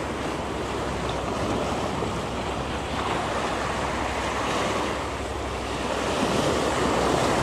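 Sea surf washing in over shoreline rocks, a steady rush that swells and eases with each wave, with wind buffeting the microphone.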